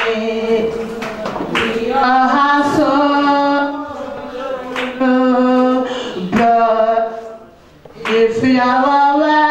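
A woman singing a slow song into a microphone, holding each note for about a second, with short breaks between phrases and no instruments.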